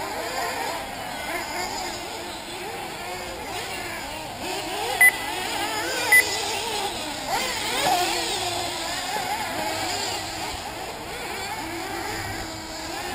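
Several 1/8-scale nitro RC buggy engines racing, their high-pitched running rising and falling as the cars accelerate and brake around the track. About five seconds in, two short, loud beeps sound a little over a second apart.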